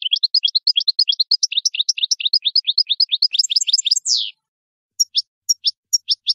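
European goldfinch singing: a fast twittering string of high notes that ends in a short downward slur about four seconds in, then after a brief pause a few separate notes, several a second.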